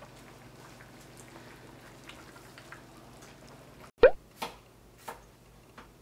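A pot of soup simmering, with faint dripping and bubbling ticks over a low steady hum. About two-thirds through comes a loud sharp knock, then three sharp taps, which fit a knife on a wooden cutting board.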